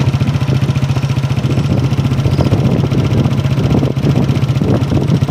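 A motor vehicle engine running steadily, a low, even drone with a fast pulsing beat.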